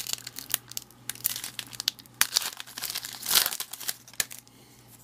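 Wrapper of a 2012 Topps Series 2 baseball card pack crinkling and being torn open by hand, with a louder rip a little over three seconds in; the crinkling dies down about four and a half seconds in.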